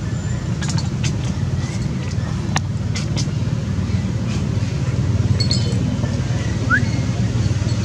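A few sharp clicks over the first three seconds as a baby macaque gnaws a metal bottle cap, over a steady low rumble of background noise. A short high chirp near the end.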